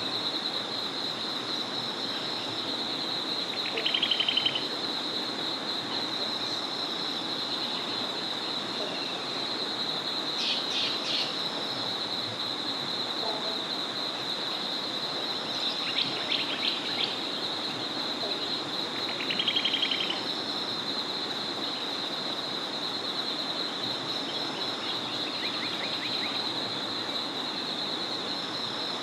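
Dusk chorus beside a small forest river: running water and a continuous high-pitched trilling chorus. Short, rapid trilled calls come twice, the loudest sounds, with a few brief bird chirps in between.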